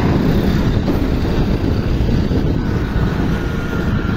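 Steady wind rumble on the microphone of a moving scooter, mixed with road and traffic noise.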